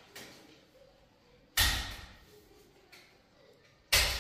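A palm slapping a taped paper photo flat against a plaster wall, twice, about two and a half seconds apart, each a sharp thud.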